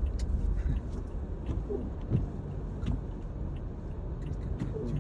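A car driving on a snowy road, heard from inside: a steady low rumble of tyres and engine, with a few faint scattered ticks.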